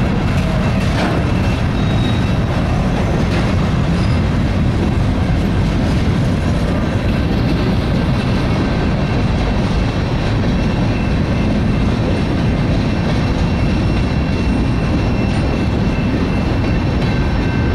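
Freight train cars rolling past at close range: a steady low rumble of steel wheels on rail, with a faint, thin high tone from the wheels running over it.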